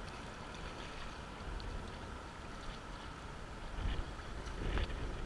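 Water lapping around a kayak, with wind rumbling on the microphone. Two splashes, about four and five seconds in, as a peregrine falcon flaps its wings in the water.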